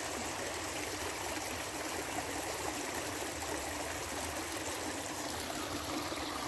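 Water of a stream running steadily, an even rushing sound.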